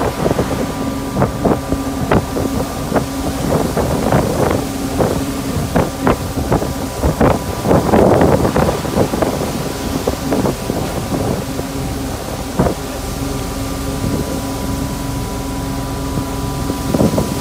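Pole-and-line skipjack fishing boat under way: a steady engine and machinery hum with rushing water and wind on the microphone, broken by frequent irregular knocks and splashes.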